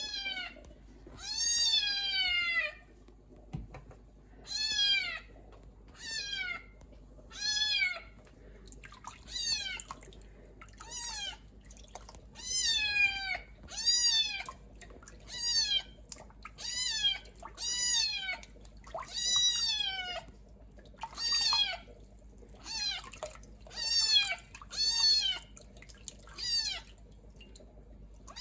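Kitten meowing over and over in high calls, about one a second, each rising then falling in pitch.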